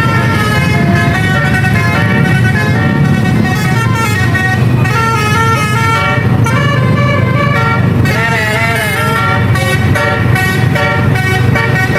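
Basuri telolet bus horn playing a tune in short, stepped notes over the steady rumble of a bus engine.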